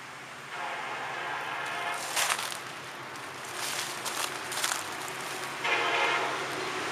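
Approaching diesel freight locomotive's air horn sounding two long blasts about five seconds apart, a crossing warning as the train nears a road grade crossing. Several short hissing bursts come between the blasts.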